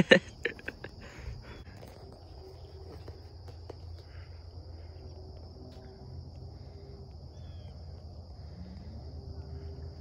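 Steady high-pitched insect chorus droning without a break, over a low steady rumble, with a short burst of a voice right at the start.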